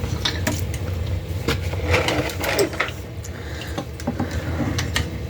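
A running boiler's steady low hum, with scattered clicks and knocks as the drain hose and valve are handled.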